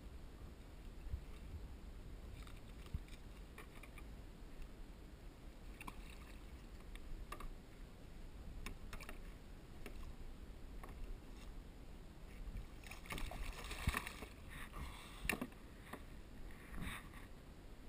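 Water sloshing and splashing against a plastic sit-on-top kayak as a hooked smooth hound shark thrashes beside the hull, with scattered knocks of the fish and hands on the plastic. There is a cluster of louder splashes and knocks about three quarters of the way through, over a low steady rumble.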